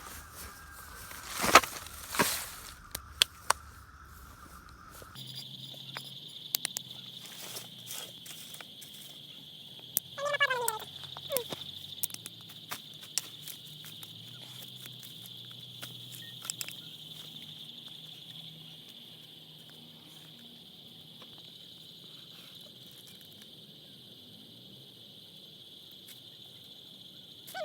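Steady high-pitched insect chirring with scattered clicks and crackles. About ten seconds in there is a short call that falls in pitch in steps. Near five seconds a lower steady tone gives way to a higher one.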